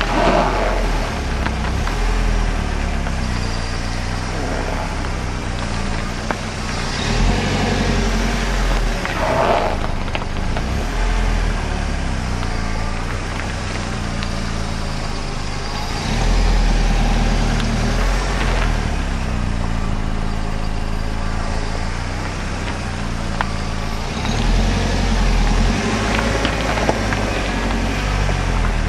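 Car tyre rubbing along a kerb, squeaking and scraping now and then over the car's steady low rumble.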